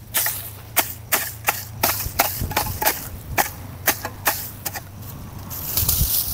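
A hand hoe chopping into dry soil and straw mulch to clear weeds, about a dozen sharp strikes a few tenths of a second apart, followed near the end by a longer scraping rustle.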